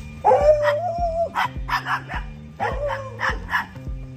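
A dog vocalizing: a drawn-out wavering whine followed by a few short, sharp yips, and the pattern comes twice. Background music with a steady beat plays underneath.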